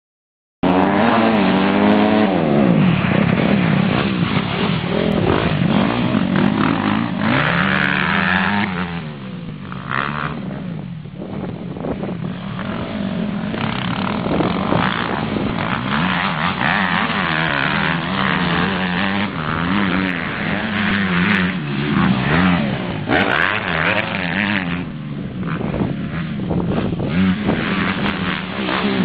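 Motocross dirt bike engines revving as the bikes ride around a dirt track, their pitch rising and falling again and again as the riders open and close the throttle.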